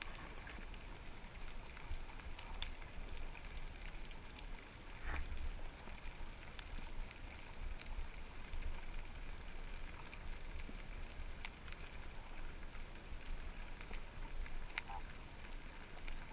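Underwater ambience recorded with the camera submerged: a steady crackling hiss with scattered sharp clicks over a low rumble.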